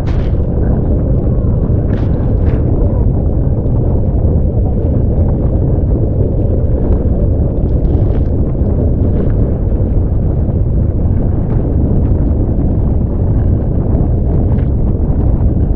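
Strong wind blasting the microphone on a catamaran sailing fast in high wind, a steady low rumble, with short hisses of water spray now and then.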